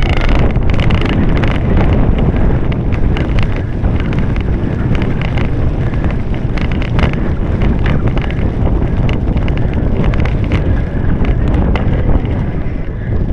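Wind buffeting the microphone of a camera carried on a cyclocross bike at speed, with the bike clattering and rattling over muddy, rutted ground in many short knocks.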